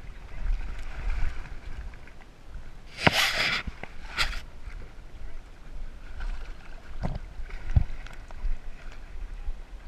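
Water sloshing and splashing around a swimming dog, heard through a GoPro housing strapped to the dog: a steady low rumble, with a sharp splash about three seconds in, another about a second later, and two smaller knocks near the end.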